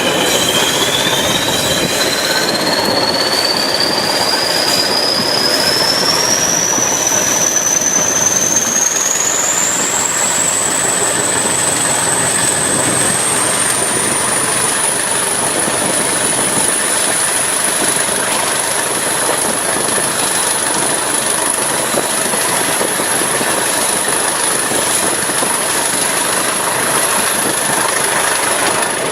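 English Electric Class 20 diesel locomotive working hard, its turbocharged engine running loudly, with a whistle that rises steadily in pitch over about the first fifteen seconds as it comes up to power, then holds.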